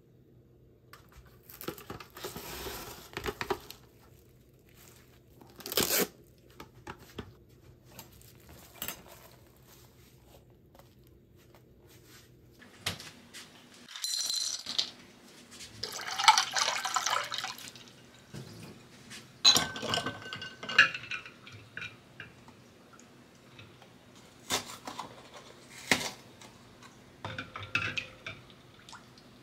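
Kitchen preparation sounds with glass mixing bowls: scattered knocks and clinks of glass on glass and on the counter, some ringing briefly, with water sloshing in a bowl. Near the end, fresh cream is poured from a carton into a glass bowl.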